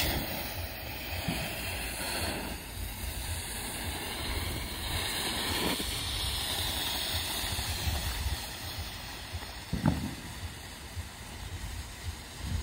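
Lit firework smoke devices hissing steadily as they pour out coloured smoke, with wind buffeting the microphone. A brief knock about ten seconds in.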